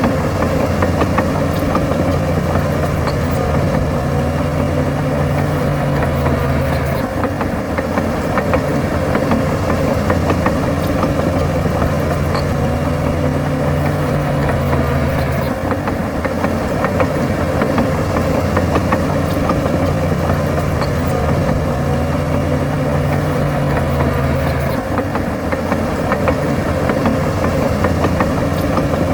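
A bulldozer's diesel engine running steadily under work. Its low note changes in a cycle that repeats about every eight to nine seconds, as the load rises and falls.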